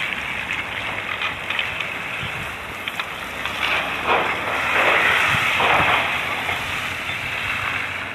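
A minivan drives past on a wet, slushy road. Its tyres hiss through the slush, swelling to loudest about four to six seconds in, over steady wind noise on the microphone.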